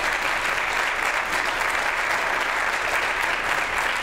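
Audience applauding steadily after a lecture ends.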